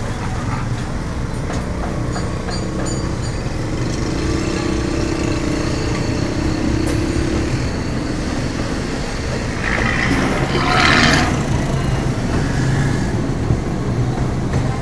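Busy street traffic of motorcycles, auto-rickshaws and cars running steadily, a continuous low engine drone. About ten seconds in, a louder burst of noise from a passing vehicle rises over it for a second or so.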